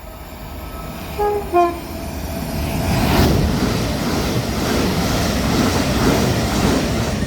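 Train sounding a two-note horn, a higher note then a lower one, as it approaches, then passing close by with a loud rumble of wheels on rail.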